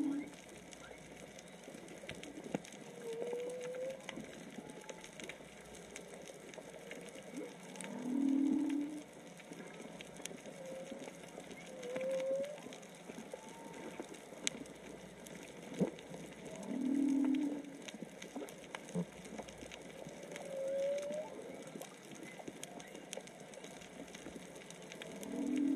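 Humpback whale song heard underwater: a low moan repeats about every eight seconds, with short rising higher notes between the moans. Faint scattered clicks sound throughout.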